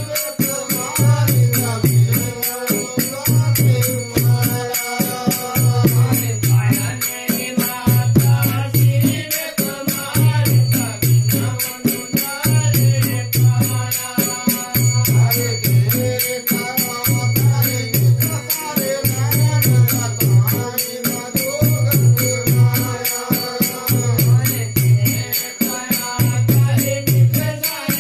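Devotional folk song: men singing to a hand-played rope-tensioned barrel drum, with a deep drum beat about every second and a half and fast rattling percussion over it.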